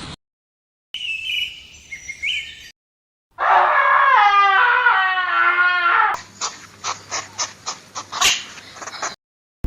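Three short animal-sound clips cut one after another with dead silence between them: high, thin chirping, then a long wavering call with a rich pitched tone, then a run of sharp clicks.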